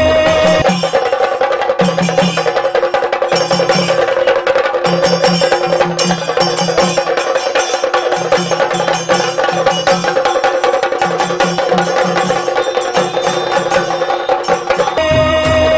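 Instrumental break of a Kannada song: a sustained melody line held over fast, rhythmic percussion with clicking wood-block-like strokes and repeating low drum beats.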